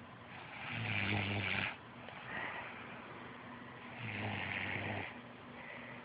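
A sleeping woman snoring: two loud snores about three seconds apart, each lasting about a second, with a low rattling tone under a breathy rasp.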